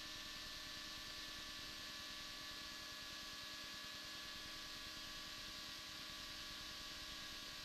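Faint, steady hiss with a low electrical hum and a few thin steady tones, the noise floor of a cockpit intercom audio feed. No engine note or touchdown bump stands out.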